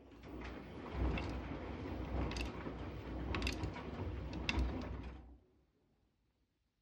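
Electrolux EW6F341PST front-loading washing machine in its main wash: the drum turns and tumbles the load over a low motor hum, with a few sharp clicks. The drum stops a little after five seconds, as it pauses between turns.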